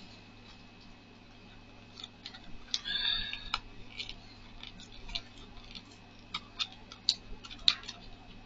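Small clicks, taps and rustles of paper and plastic packaging being handled and opened by hand, with a short rustle about three seconds in and a run of sharp ticks later on.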